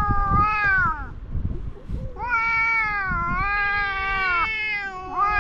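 Two cats yowling at each other in a standoff before a fight: long, drawn-out caterwauls, the first falling away about a second in, then one held for about two seconds, and another starting near the end.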